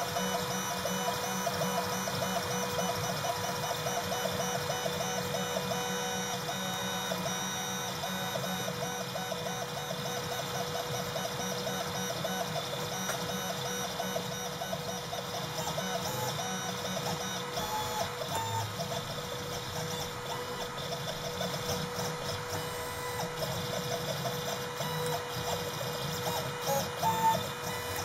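Desktop CNC engraver running an engraving pass: stepper motors whining with a pulsing, shifting pitch over a steady hum.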